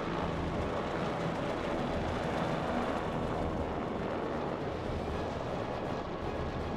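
OH-58D Kiowa Warrior scout helicopter flying low, with steady rotor and engine noise.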